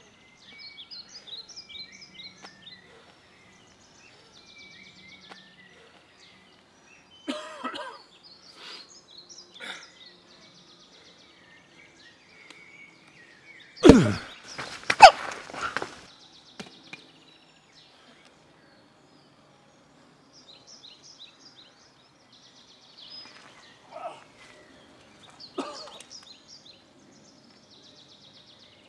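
Small birds chirping and singing in woodland, with a few bursts of rustling. About halfway through comes a sudden loud scuffle: hard hits and a falling grunt.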